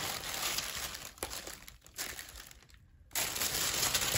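Packaging crinkling and rustling as it is handled, breaking off briefly near three seconds in and then coming back louder.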